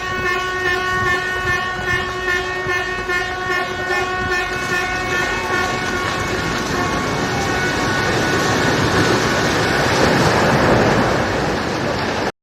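Vehicle horns blaring in one long, steady chord that fades over the second half. Meanwhile a rumbling crash of falling rubble builds and is loudest near the end: a heavily earthquake-damaged eight-storey building collapsing during demolition.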